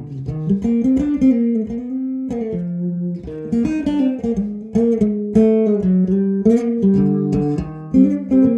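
Electric guitar with Seymour Duncan Zephyr humbucker pickups, playing a melodic run of picked single notes and short note pairs, each with a sharp attack and ringing out.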